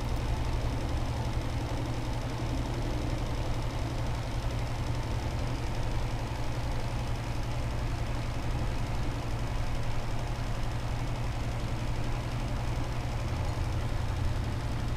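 A steady low mechanical hum from a running motor.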